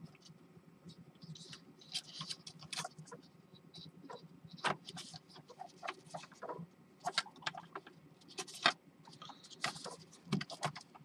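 Hands handling a quadcopter's plastic body and wiring: irregular small clicks, taps and rustles as the GPS cable connector is plugged back into the flight board.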